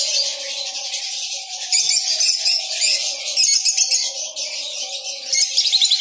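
Many caged lovebirds and other small parrots chattering at once, a dense, continuous stream of rapid high chirps, with background music underneath.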